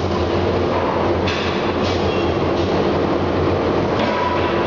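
Forge-shop machinery running with a steady low hum and dense mechanical rumble, around the CNC forging hammer; no hammer blows land.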